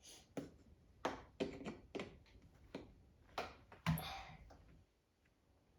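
Plastic parts of a Mosasaurus toy figure being handled and fitted together: a series of light clicks and taps, with one louder knock about four seconds in.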